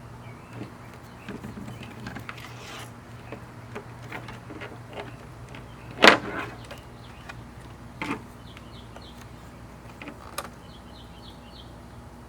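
Scattered clicks and knocks of plastic trim and stiff wiring being handled and pushed through the Camry door's mirror-mount hole, with one sharp knock about six seconds in and smaller ones near eight and ten seconds, over a steady low hum.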